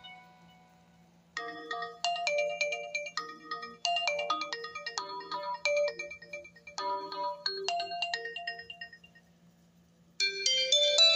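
Oppo A7 smartphone ringtones: one fades out, then a melodic ringtone of short notes, each quickly fading, plays for about seven and a half seconds and stops. After a brief pause a busier, louder ringtone begins near the end.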